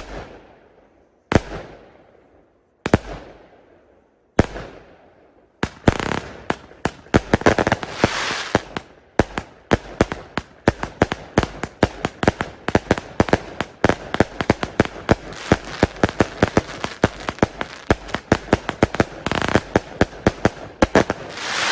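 Fireworks going off: single loud bangs about every second and a half, each echoing away, then about six seconds in a dense, rapid barrage of bangs with crackling that runs on and then stops suddenly.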